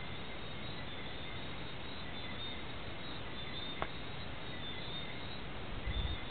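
Steady background hiss with faint, intermittent high-pitched chirps, a single sharp click about four seconds in, and a few low bumps near the end.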